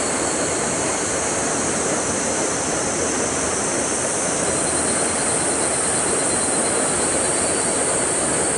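Steady rush of stream water flowing into a rocky pool: an even noise that does not change.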